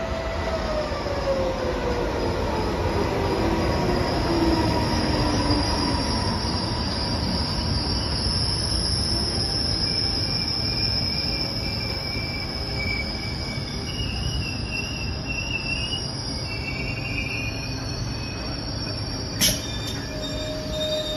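A regional passenger train hauled by an E464 electric locomotive rolls slowly in and brakes toward a stop, with a steady rumble of wheels on rail. A whine falls in pitch over the first few seconds as it slows. A steady high squeal runs throughout, wavering higher squeals come and go, and there is a sharp click near the end.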